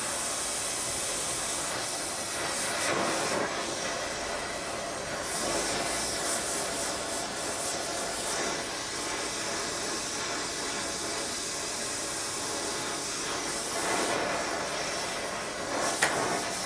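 Gas torch flame hissing steadily as it heats a steel crank web for a shrink fit, with one sharp click near the end.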